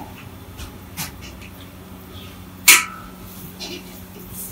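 A metal ladle scrapes and knocks against a large metal wok while stirring a gravy dish. There is a small clank about a second in and a loud clank with a short metallic ring near the middle, over a steady low hum.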